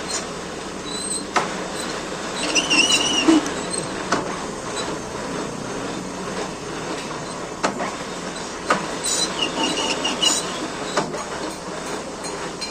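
Metal lathe running with a steady hum and clatter while a thread is cut on a bolt, with high-pitched squealing twice, about two and a half seconds in and again about nine seconds in.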